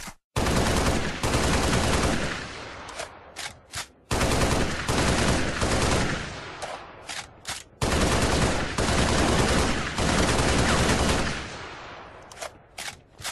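Three long, loud sputtering "prrraaa" noises, each lasting about three seconds and tailing off, with a few short pops between them.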